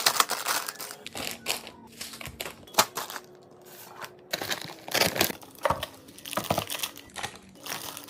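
Plastic packaging crinkling and rustling in irregular bursts as items are handled, with a sharp click about three seconds in.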